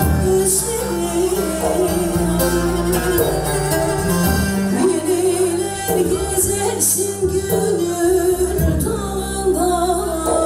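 Woman singing a Turkish folk song (türkü) live into a microphone, her melody wavering and ornamented over a band accompaniment of electronic keyboard and saz.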